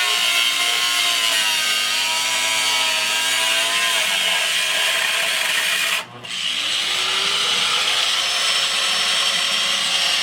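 Handheld power tool cutting metal, running steadily, with a wavering whine over a hiss. It stops about six seconds in and starts again, its pitch rising as the motor spins up.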